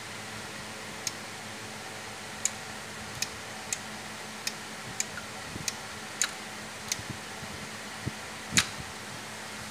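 Light clicks, about a dozen at uneven intervals, from a finger touching the plastic trip mechanism of a Siemens WL air circuit breaker, over a steady low hum.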